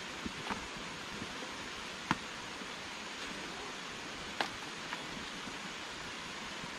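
Rustling and a few sharp knocks as a long banana leaf is handled and set upright against a bamboo shelter wall, over a steady rushing background noise. The clearest knocks come about two seconds in and again about four and a half seconds in.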